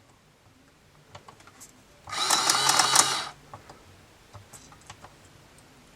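Electric printing adding machine in use: a few light key clicks, then a loud rapid mechanical clatter for about a second as its motor runs a cycle. Scattered key clicks follow.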